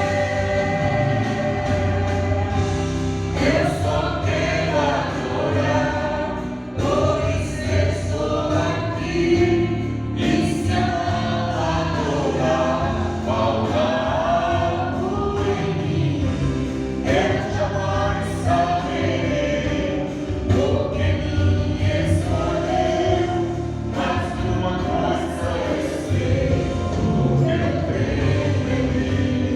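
Gospel worship song: voices singing over steady instrumental accompaniment, without a break.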